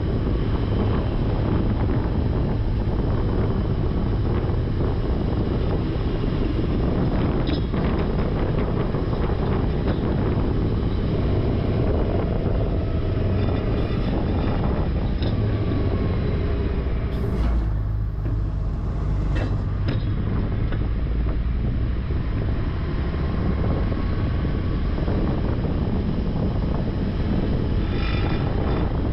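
Heavy truck's diesel engine running steadily, a low, even rumble.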